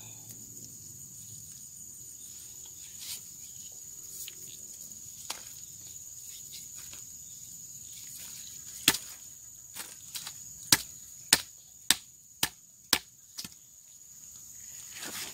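Insects chirring steadily in a high, even tone. About nine seconds in comes a run of about eight sharp knocks, roughly two a second, that stops after a few seconds.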